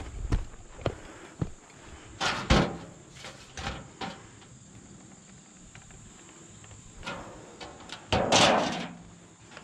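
Thin sheet-metal roof flashing being handled and set down on asphalt shingles: scraping and rattling, loudest about two seconds in and again near the end, with a few light knocks.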